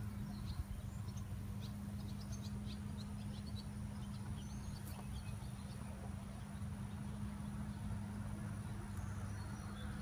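Outdoor ambience: a steady low hum with brief faint bird chirps in the first few seconds.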